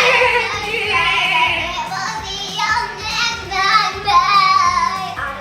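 Background music with a steady beat and a high, wavering singing voice over it.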